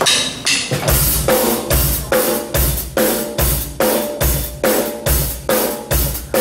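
Live rock band playing an instrumental intro: a drum kit keeps a steady beat on bass drum, snare and cymbals, with electric bass and electric guitars. The full band comes in about a second in, after a lighter opening.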